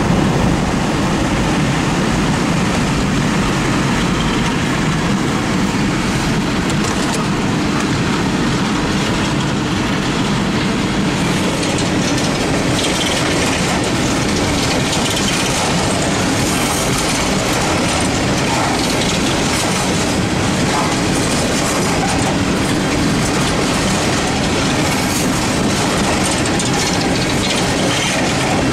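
Freight train of aluminium coal gondolas rolling past at close range: steady noise of steel wheels running on the rails, with no letup.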